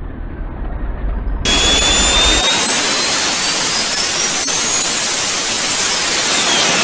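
Turbocharged pickup truck's engine at full power on a chassis dyno: a loud rushing roar with a high turbo whistle that climbs steadily in pitch, starting abruptly about a second and a half in after a quieter low engine rumble. Near the end the whistle begins to fall.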